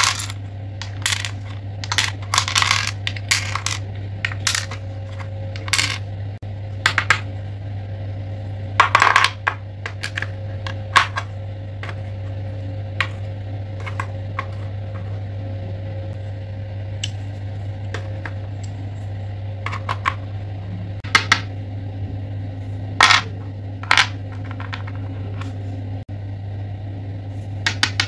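Wooden toy pieces and stacking rings clicking and clacking as they are handled, set into a wooden shape-sorting board and slid onto its pegs: scattered sharp clicks at an irregular pace, with a few louder clusters of clacks. A steady low hum runs underneath.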